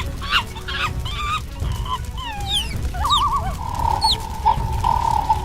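Cartoon sound effects: a run of short clucking calls, then several quick falling whistles, a wobbling warble about three seconds in, and a held whistle-like tone to the end.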